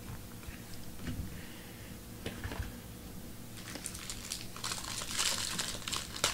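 Crinkling of a foil trading-card pack wrapper being handled, faint at first and then loud and crackly over the last few seconds.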